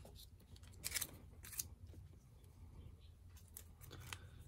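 Board-game cards and pieces handled on a tabletop: a few faint, sharp taps and slides as cards are moved and set down.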